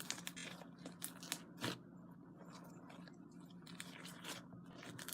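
Freshly kneaded slime being stretched and squished by hand, making faint, irregular little clicks and crackles, a few of them louder in the first two seconds.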